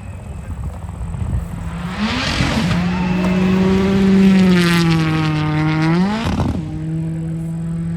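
A rally car's engine at full throttle, running past at speed on a gravel stage. The engine note builds to its loudest about four seconds in, sweeps sharply up in pitch about six seconds in, then holds steady as the car carries on.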